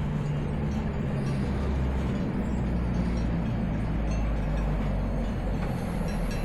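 Steady rumbling running noise of a moving train, with no clear changes.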